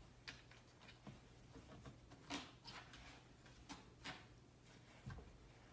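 Faint, irregular clicks and scrapes of a puppy chewing at the base of a fabric sofa, over a faint low steady hum.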